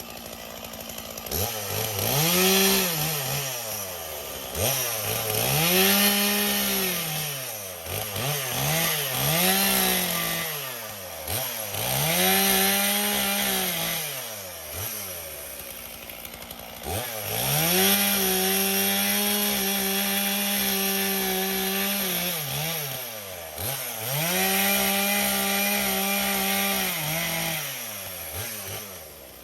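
Two-stroke chainsaw revved up to full throttle and let back down to idle again and again, about six times. It holds high speed longest near the middle and near the end while cutting through a fallen branch.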